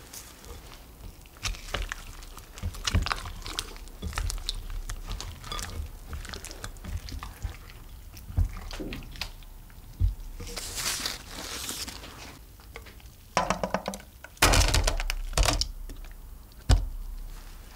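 Orange silicone spatula stirring egg-coated potato slices in a glass bowl: wet squishing and scraping with light clicks against the glass. Near the end the mixture slides out with a louder wet pour, followed by a single knock.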